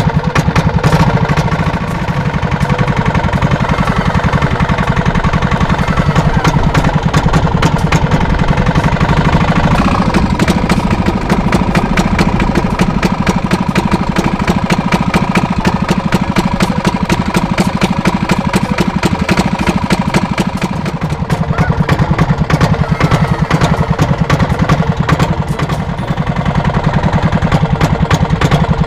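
Small boat engine running steadily close by, a rapid even putter of firing pulses, dipping slightly twice.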